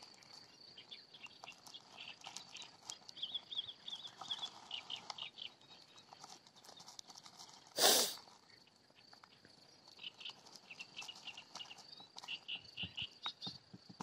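Reedside pond ambience: a steady high-pitched insect trill with bursts of quick, repeated chirping calls and scattered small clicks. One short, loud burst of handling noise comes about eight seconds in, as the camera is moved.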